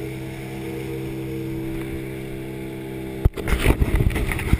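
Outboard motor running steadily as a small boat speeds across open sea. A little over three seconds in, a sharp knock, then loud irregular thumping and rubbing as the camera is moved.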